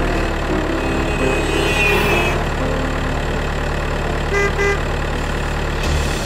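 Steady motor-vehicle engine sound, running at an even idle, with a few short high tones over it near the middle. It is most likely a dubbed engine effect for a toy police jeep.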